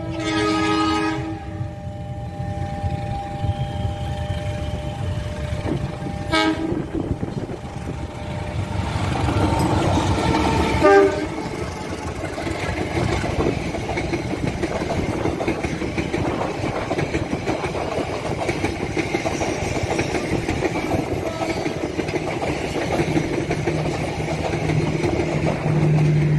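A train horn sounds at the start, with shorter blasts about six and eleven seconds in. Then an Indonesian passenger train runs past close by, its cars and wheels rumbling steadily on the track.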